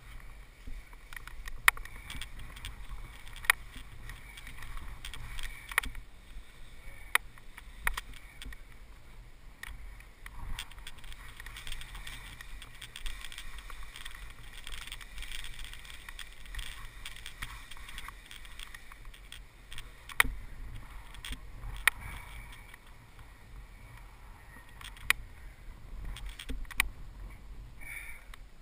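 Wind rumbling on a body-worn camera's microphone, with a dozen or so scattered sharp clicks and knocks from a paraglider pilot handling his harness and gear.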